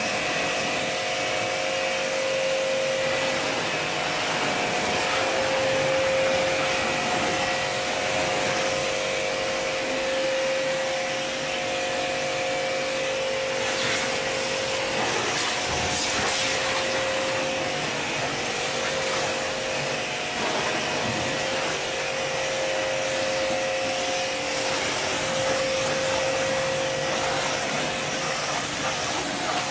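Hiroma pressure washer running steadily while spraying foam through a foam cannon: a constant hum from the motor and pump under the hiss of the spray.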